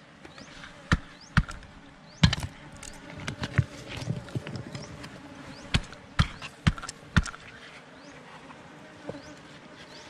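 A metal tool knocking and scraping against rock and loose stones, with irregular sharp clinks and knocks about once or twice a second while digging into a rock crevice for a wild beehive. A faint steady buzz of bees runs underneath.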